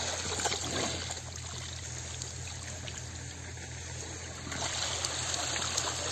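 Water trickling and splashing as a slotted plastic crate is lifted out of shallow pond water and drains through its sides. It grows louder about three-quarters of the way through as the crate comes up.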